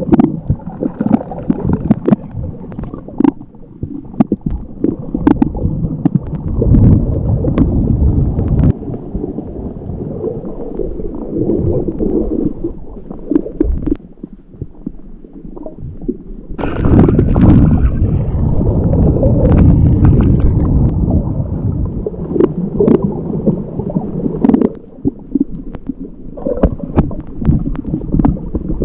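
Muffled underwater rumble and gurgling of water moving around a GoPro in its waterproof housing while snorkelling, with scattered sharp clicks. The sound turns brighter and fuller for a few seconds a little past halfway.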